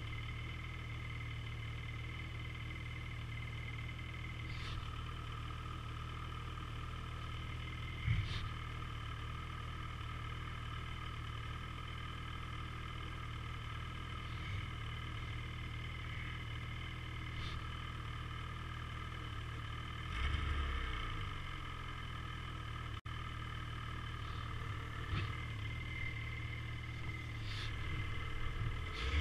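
Ski-Doo Summit 850 E-TEC snowmobile's two-stroke twin engine running at a steady, unchanging speed. There is a brief knock about eight seconds in and a short low rumble around twenty seconds.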